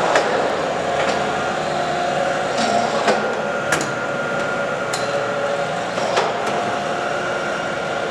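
Lodge & Shipley heavy-duty engine lathe running under power, a steady gear-driven whine with a few held tones. Sharp clicks or knocks come at irregular moments, about six in all.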